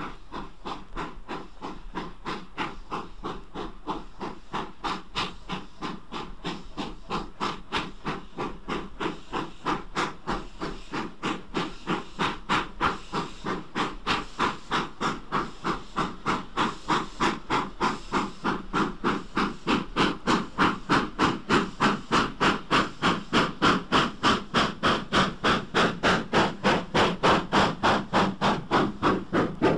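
GWR 'Castle' class 4-6-0 steam locomotive working slowly under a heavy load, its exhaust beating in a steady, even rhythm. The beats grow louder as it draws near.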